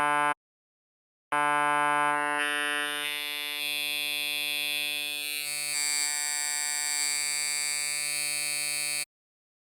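Xfer Serum software synthesizer playing a held low note at one steady pitch. A short note cuts off just after the start; after about a second of silence a long note holds, its tone shifting and growing brighter as it goes, and it cuts off abruptly near the end.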